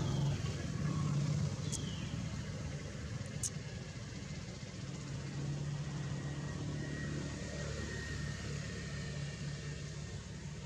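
A steady low engine hum, like a motor vehicle running nearby. It is broken by two brief high chirps about two seconds in and again a second and a half later.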